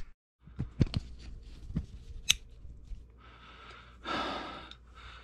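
Handling noises: scattered clicks and knocks as the camera and tools are moved about, with a breathy exhale about four seconds in.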